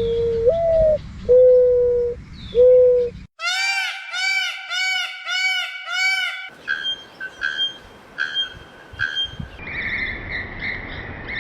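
Several different birds calling one after another. First come low whistled notes, one stepping up in pitch. Then, about a third of the way in, a quick run of repeated arched chirps. After that come shorter, higher calls over a light hiss.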